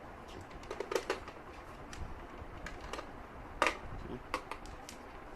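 Scattered light clicks and taps from handling a multimeter and its test probes against a battery circuit. The two loudest come about a second in and just past the middle.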